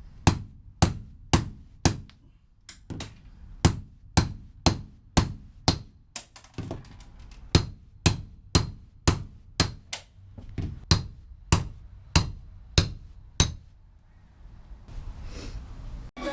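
Hammer striking a steel punch to drive out rivets in a school bus body, about two sharp ringing metal blows a second with a couple of brief pauses, stopping near the end.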